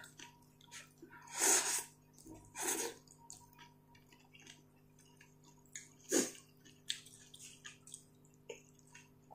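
Ramen noodles slurped in short bursts, about one and a half and two and a half seconds in and once more, briefly, about six seconds in, with soft chewing and small clicks of chopsticks between.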